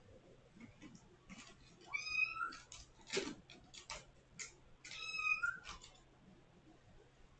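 Kitten meowing loudly at a closed door to be let out, two drawn-out calls that rise in pitch, with a few sharp clicks and a knock in between.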